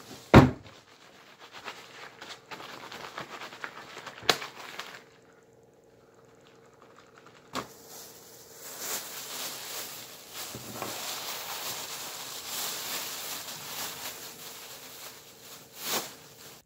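Cleaning on a wooden table: sharp knocks of things set down or struck on the tabletop, the loudest about half a second in, then a long stretch of rubbing and scrubbing with a cloth in the second half, ending in another knock.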